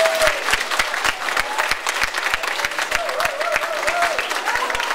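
Audience applauding, many hands clapping steadily; a held musical note ends just as it begins.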